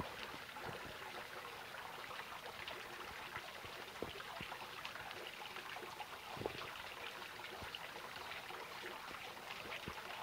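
Small stream trickling and babbling over rocks: a steady water sound with a few sharper ticks, one about six and a half seconds in.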